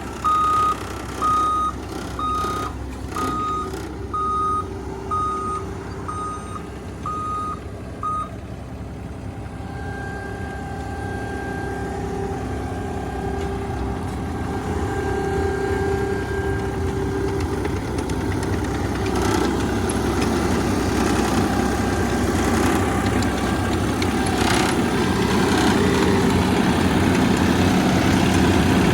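A heavy vehicle's backup alarm beeps about once a second and stops about eight seconds in. Its engine runs on, growing gradually louder.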